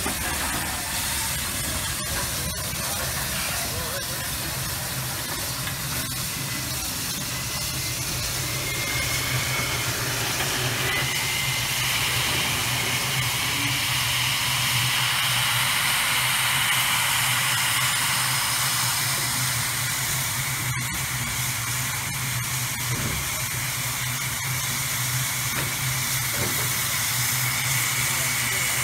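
Steam locomotive K 153 standing in steam, hissing steadily over a low constant hum. A brighter, louder hiss comes in about eleven seconds in.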